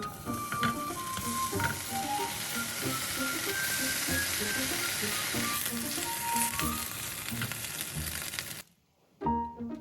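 Food sizzling as it fries in a pan, a steady hiss that cuts off suddenly near the end, with light background music over it.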